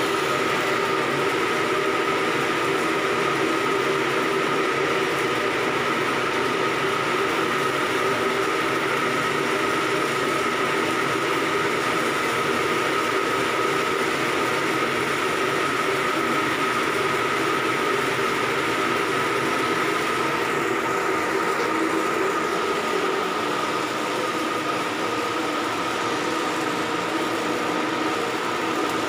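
Heavy machinery running steadily: a loud, continuous drone with a steady whine on top. It eases off slightly about two-thirds of the way through.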